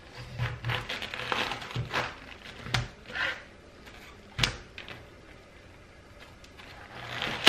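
Kitchen knife crunching through a hard raw head of cabbage, with a few sharp knocks of the blade on the cutting board, the sharpest about four and a half seconds in.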